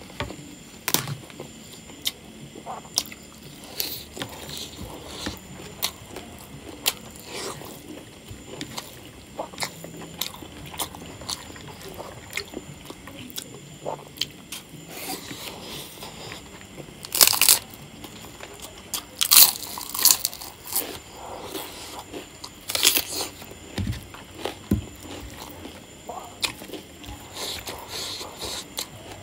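Eating by hand: fingers squishing and mixing rice with pork curry on a plate, and chewing, with several loud crunchy bites a little past halfway.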